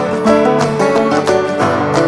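Background music: upbeat acoustic guitar with plucked, country-style picking.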